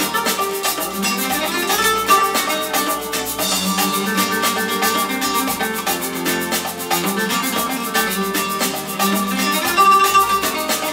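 Music with a steady drum beat and a bright pitched melody playing through Aurelia Magneta II bookshelf loudspeakers, picked up in the room by a camera's built-in microphone, so it sounds thin in the bass.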